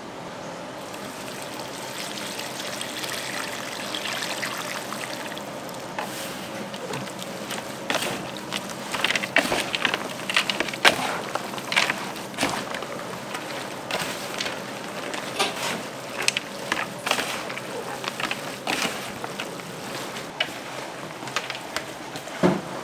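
Kitchen food-preparation sounds: a steady background hiss, then from about six seconds in a run of irregular clicks and knocks, with wet, water-like sounds.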